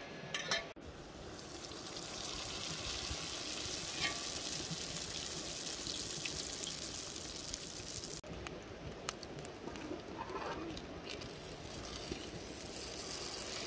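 Oil sizzling steadily as bolani, stuffed flatbreads, fry in a pan. The sizzle drops off sharply about eight seconds in and builds back up.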